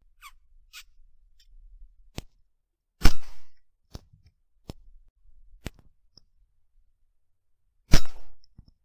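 Two rifle shots about five seconds apart, each a single sharp crack with a short tail, with quieter clicks and ticks between them.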